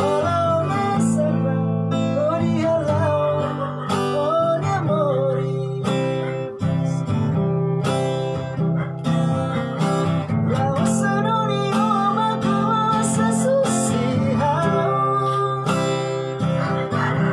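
Acoustic guitar strummed in chords while a man sings along, his voice rising and falling over the guitar.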